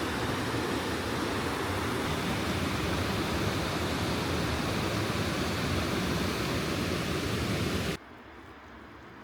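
Waterfall rushing in a steady, loud roar of water, cutting off suddenly near the end to a much quieter background.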